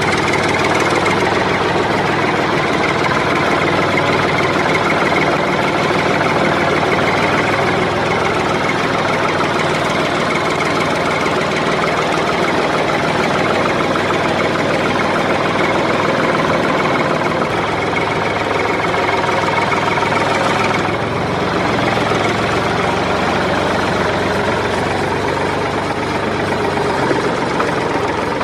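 An engine running steadily at idle, a continuous low chugging hum with a slight change in tone about two-thirds of the way through.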